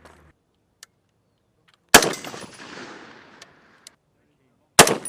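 Two rifle shots about three seconds apart, each with a long echo fading away after it.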